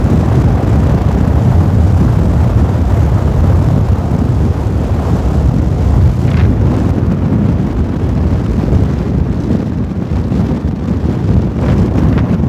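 Lava fountaining from the Fagradalsfjall volcano's crater during a geyser-like jetting episode: a loud, steady low rumble, easing a little in the second half as the fountain dies down.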